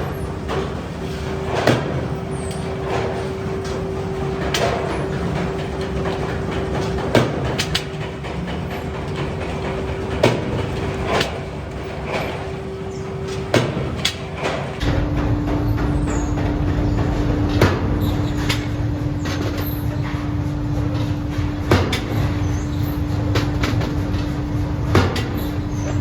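Forging-shop machinery running with a steady hum, with sharp metal clanks every two to four seconds as hot iron kick-starter parts are worked in the machines. About halfway through, the hum drops to a lower pitch and the rumble grows heavier.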